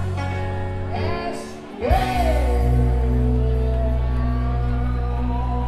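Live rock band with a male singer holding long sung notes over guitars and bass. The band drops away briefly about a second and a half in, then comes back in with a sustained chord and a long sung note that slides down in pitch.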